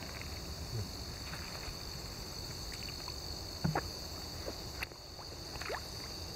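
Lake water sloshing and splashing as a mesh landing net is dipped into the water and drawn through it, with a few short splashes, the loudest a little under four seconds in.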